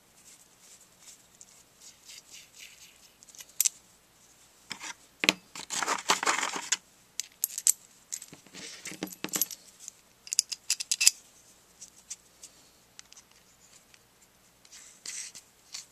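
Small metal parts clicking and clinking as they are handled and fitted together by hand: a threaded screw, a handle and a machined metal block. A longer scraping rustle comes about six seconds in, and a quick run of sharp clicks just before the eleven-second mark.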